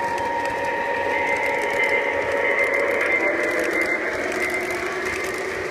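O-gauge model diesel passenger train running on three-rail track: a steady whirring of motors and wheels on the rails with a held whine, a little louder near the middle as the cars pass close.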